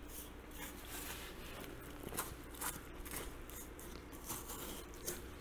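A 6-inch curved Victorinox knife making faint, quick swipes through tough bison hide at the neck and front shoulder, an uneven run of short cutting strokes about two a second. Each stroke is audible because the hide here is so tough, about half an inch or more thick.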